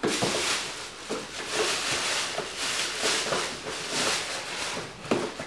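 Thin plastic shopping bag rustling and crinkling in repeated bursts as it is rummaged through.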